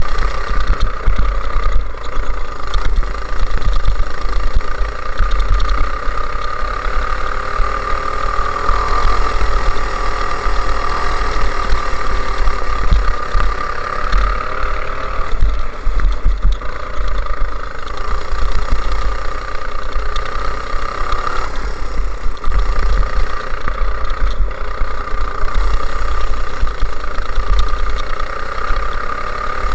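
Go-kart engine running hard on track, heard from on board the kart, its pitch dipping and climbing again several times as the driver lifts off and accelerates through the corners.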